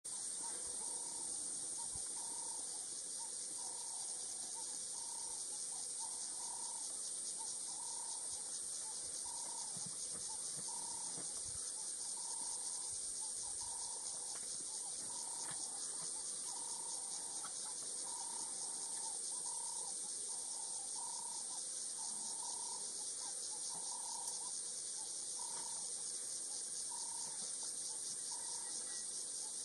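Insect chorus in the African bush: a steady, unbroken high-pitched shrill, with a lower short call repeating about once a second underneath.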